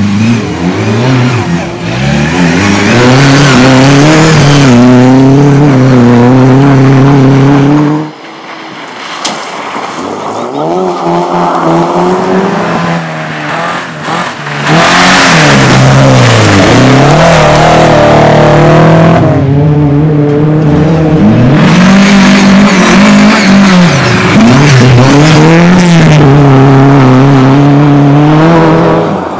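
Race car engine at full throttle, its pitch rising and dropping again and again as it revs and shifts, with tyre noise over it. About eight seconds in the engine drops back and goes quieter, then comes back at full throttle some six seconds later.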